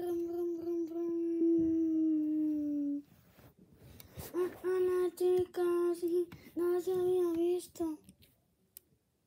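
A child's voice singing wordlessly: one long note held about three seconds and sagging slightly at its end, then, after a short pause, a run of short notes on the same pitch.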